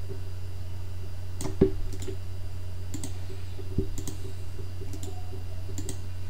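Scattered clicks from a computer mouse and keyboard, about eight over a few seconds, as text is selected, copied and pasted, over a steady low hum.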